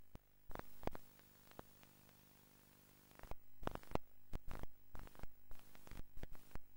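Irregular sharp clicks and knocks over a faint steady hum. They thin out to a quiet stretch about a second in, then come thick and fast again for the second half.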